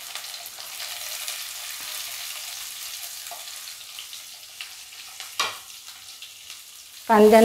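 Chopped onions sizzling in hot oil in a steel kadhai with fried cumin seeds and garlic: a steady crackling hiss, with a single knock about five seconds in.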